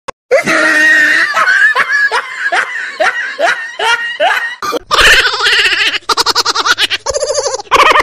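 A run of recorded laughing sound effects. First comes a high shriek that turns into a string of about eight evenly spaced falling 'ha's. After a brief break about four and a half seconds in, other laughs follow with fast, rapidly pulsing cackles.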